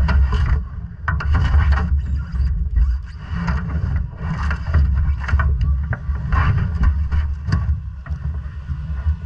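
Quarter midget race car's single-cylinder Briggs & Stratton Animal engine running at racing speed, its loudness swelling and dropping every second or so.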